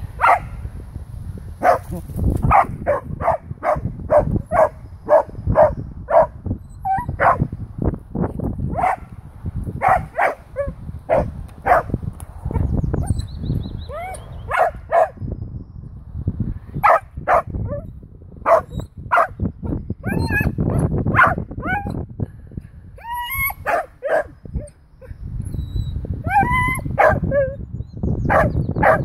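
Dachshund barking repeatedly at a wild boar behind a fence, in quick runs of about two barks a second, later mixed with high whining yelps.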